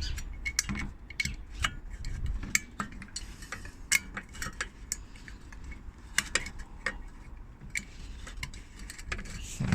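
Light, irregular metal clicks and clinks as a Morris Minor headlamp unit is handled and the bulb's retaining clip is worked into place over the bulb.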